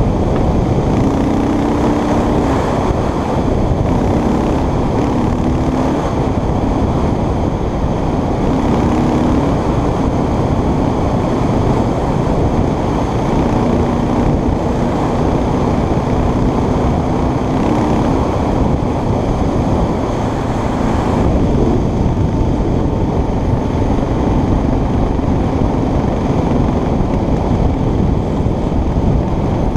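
Motorcycle engine running while riding along a gravel road, its tone wavering slightly with the throttle under heavy wind noise on the microphone.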